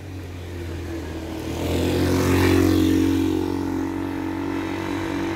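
A motor vehicle's engine running close by in street traffic; it swells to its loudest about halfway through and then holds steady.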